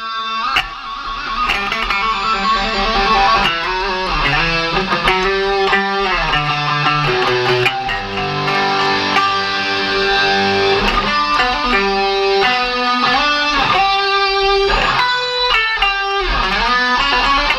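Electric guitar played loud by a live rock band, a lead line whose notes bend up and down in pitch over the band's bass.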